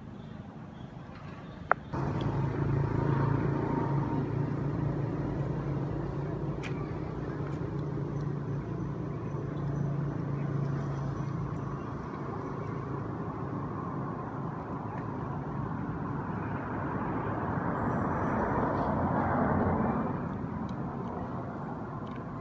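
A motor engine running steadily, a low hum that starts abruptly about two seconds in, grows louder near the end and then drops back a little. A single sharp click comes just before it starts.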